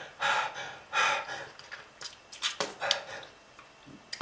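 A smoker's harsh, breathy coughing and gasping: two heavy bursts in the first second or so, then a few short, sharp throat clicks.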